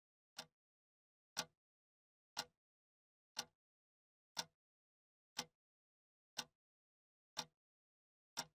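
Clock-tick sound effect marking a countdown: a single sharp tick once a second, about nine in all, with dead silence between the ticks.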